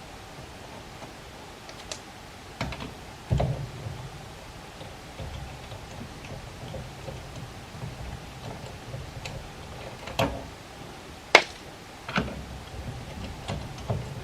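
Scattered, irregular clicks and metallic knocks of hand tools working on a car wheel while it is being taken off, with the loudest knock a little past the middle.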